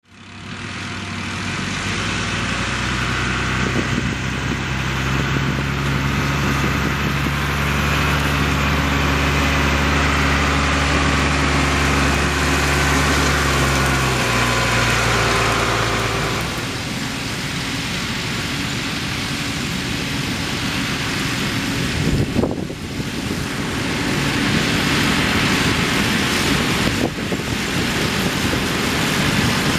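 A Fendt tractor's diesel engine running at a steady pitch. From about halfway, a New Holland tractor pulling a working round baler takes over: a rougher, noisier machine sound, with a brief dip about two-thirds of the way in.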